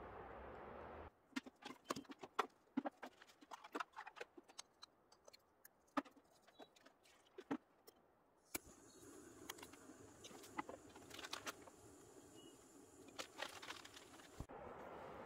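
Light clinks and knocks of metal camp cooking gear being handled on a tailgate table. About eight and a half seconds in comes a click, then the steady hiss of a small canister gas stove burning under a pot.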